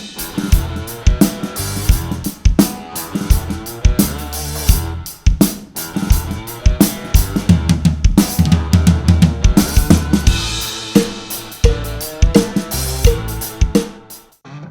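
Drum kit played along to a backing song: kick drum, snare and cymbals in a busy groove. The snare is damped with a Big Fat Snare Drum pad. The playing and music stop briefly just before the end.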